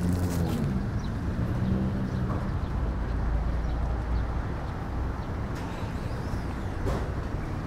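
Vehicle engine noise: a steady engine hum that fades out about two and a half seconds in, leaving a low traffic rumble.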